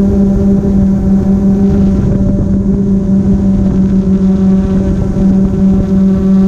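Multirotor drone's motors and propellers humming steadily at one pitch, heard loud from the camera mounted on the drone, with a low rumble underneath.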